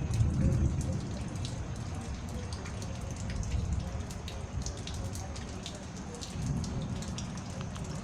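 Steady rain during a thunderstorm, with many individual drops ticking over a low, even rushing noise.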